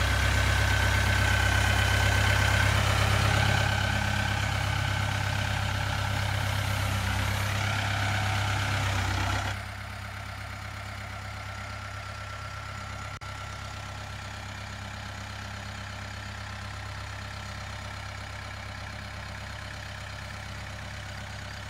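Mahindra compact tractor's diesel engine running steadily as the tractor drives slowly with a load on its loader forks. About ten seconds in the sound drops suddenly to a quieter, more distant level and carries on steadily.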